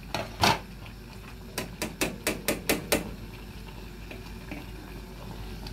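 Metal ladle clinking against a stainless steel saucepan while stirring thick curry: two clinks at the start, then a quick run of about eight clinks between roughly one and a half and three seconds in.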